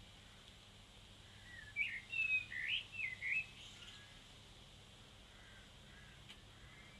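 A bird chirping: a short run of quick, gliding high notes lasting about two seconds, starting a second and a half in, over a faint steady hum.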